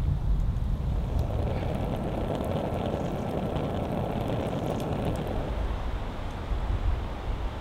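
Wood logs burning in a small mesh-sided portable fire pit, with a scatter of faint crackles over a steady low rumble.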